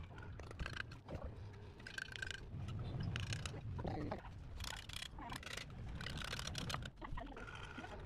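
Bricklaying work: a steel trowel scraping and tapping mortar, and hollow clay bricks knocking and clicking as they are set into place, in several short bursts over a low background rumble.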